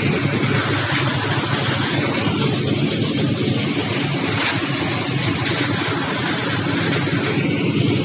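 An engine running steadily at constant speed, a continuous even hum with no change in pitch, on a concrete pour.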